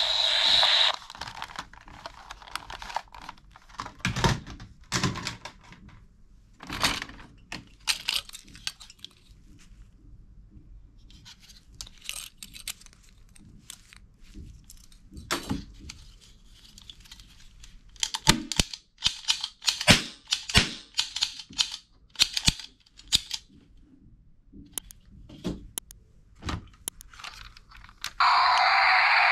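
Hard plastic toys clattering, clicking and knocking against each other as they are handled and shifted around in a cardboard box, in scattered irregular knocks. A loud steady electronic toy sound cuts off about a second in, and another starts near the end.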